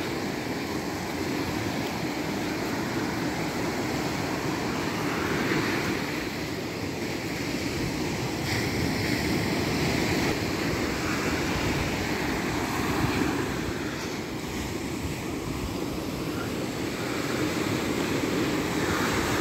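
Small waves breaking and washing up a sandy beach, a steady surf wash that swells and eases gently, with wind rumbling on the microphone.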